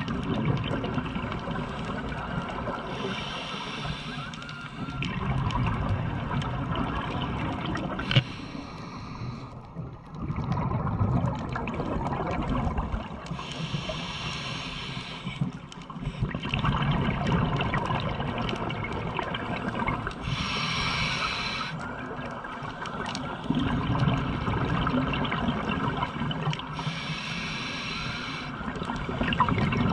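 Scuba diver breathing through a regulator underwater, five breaths about six seconds apart: a hiss on each inhale, then a low gurgle of exhaled bubbles. A single sharp click about eight seconds in.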